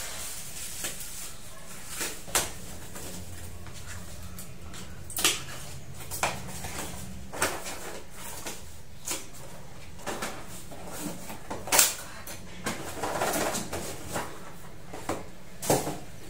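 Unboxing sounds: a black plastic wrapper rustling and small cardboard coffee-capsule boxes being set down on a wooden desk, heard as a string of separate sharp taps and rustles, the loudest about twelve seconds in.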